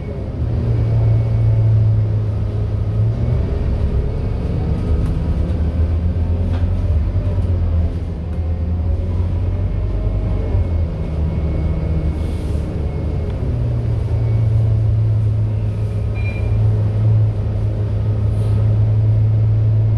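Scania K230UB Euro 5 bus's five-cylinder diesel engine heard from inside the passenger cabin, running as the bus drives at low speed. Its low hum steps down in pitch a couple of times and rises again about two-thirds of the way through, with a few light clicks from the cabin.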